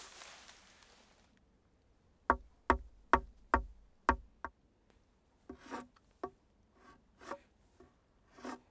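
Six sharp, hard knocks on a birch log in about two seconds, followed by several softer, duller knocks or scrapes on the wood.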